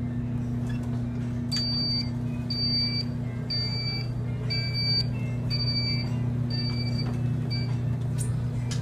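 Electric supermarket mobility cart beeping, a short high beep about once a second, seven times, the pattern of its reverse warning beeper, over a steady low hum.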